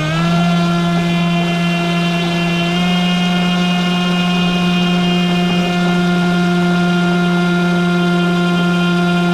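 Brushless electric motor and propeller of an RC airboat running at a steady high pitch. It climbs back to speed right at the start after a brief dip in throttle.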